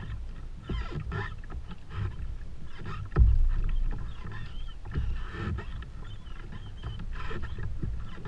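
Wind buffeting a helmet-mounted camera's microphone over a plastic kayak on choppy water, with short knocks and water slapping against the hull; a sudden louder low rumble comes about three seconds in.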